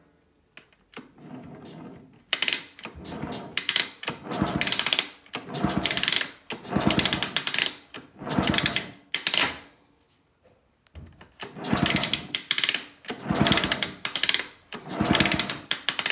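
A 50cc two-stroke engine (Minarelli AM6) turned over by hand on its kickstart lever with the cylinder head off: about a dozen strokes of roughly a second each, with a short pause near the middle. Each stroke brings a strange mechanical noise from inside the engine, which the owner suspects is a worn crankshaft bearing.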